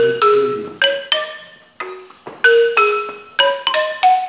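Wooden-barred marimba played with mallets: single struck notes of a simple tune, about three a second, each ringing briefly and dying away.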